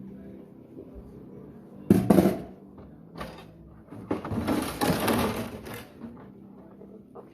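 Dishes being washed by hand: a sharp clatter about two seconds in, a shorter one a second later, then about two seconds of continuous rattling and splashing noise.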